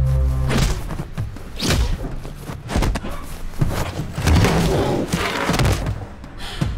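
Thuds and scuffling of a staged hand-to-hand fight, several heavy impacts as bodies move and a person falls onto a wooden floor among metal folding chairs.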